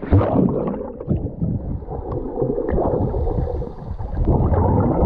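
Water churning and bubbling around a swimmer, heard from under the water of the lake. The sound is muffled, with the high sounds cut off, and is loudest around the swimmer's strokes.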